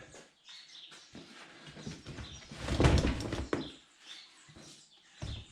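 Gear being handled and shifted in a vehicle toolbox, with a louder scraping, rustling stretch of about a second starting some two and a half seconds in.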